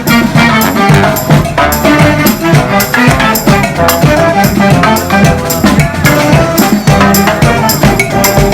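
Brass marching band playing with drums, over a steady beat.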